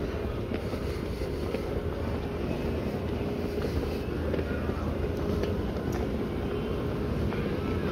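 Airport terminal concourse ambience: a steady low rumble with a faint steady hum through it and a few light clicks.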